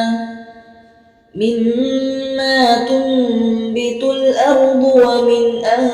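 A voice chanting Quran recitation in long drawn-out melodic notes. The first held note fades away in the first second; after a short break a new long note starts and winds through small turns of pitch.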